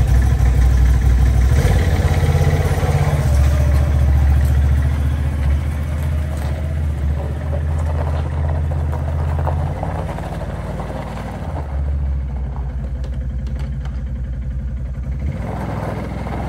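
Four-wheeler (ATV) engine running just after being started, close by at first with its revs stepping up a few times, then driving away and growing quieter from about six seconds in.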